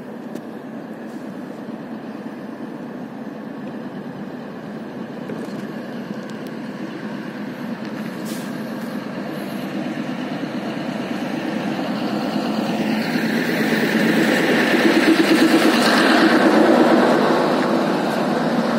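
Train approaching, its engine and running noise growing steadily louder, loudest near the end and then easing slightly.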